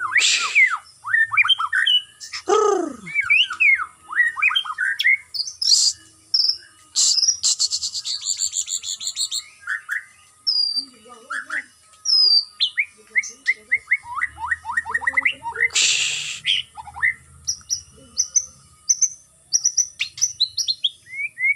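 White-rumped shama (murai batu) singing a varied song of clear whistles, quick chirps and fast rattling trills, broken by a few short harsh calls.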